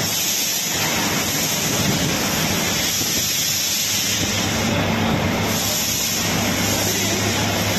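Train standing at a station platform: a steady hissing noise over a low, even engine hum.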